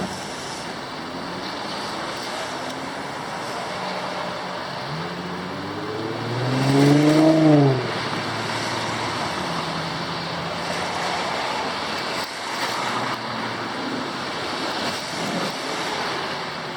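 Steady hiss of rain and wet-weather traffic. About five seconds in, a motor vehicle's engine passes, rising in pitch and then falling away; it is the loudest sound.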